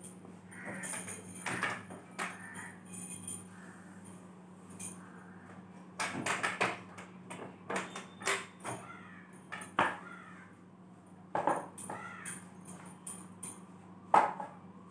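A long-handled broom sweeps along a ceiling in irregular brushing scrapes, with knocks from the broom against the ceiling and walls. A sharp knock near the end is the loudest. A steady low hum runs underneath.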